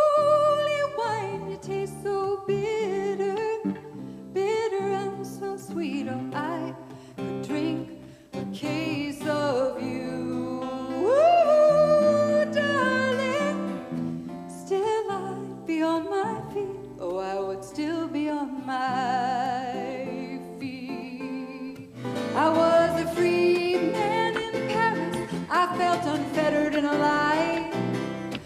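A woman singing a slow ballad live, with guitar accompaniment. Near the end it cuts abruptly to a fuller, livelier song with the band.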